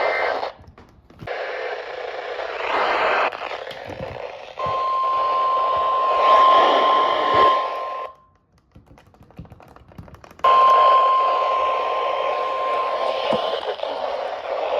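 Weather radio's steady alert tone, about 1 kHz, sounding over hissy radio static, heralding a new warning. It is heard for about three and a half seconds, cuts out for about two seconds, then returns for about three seconds.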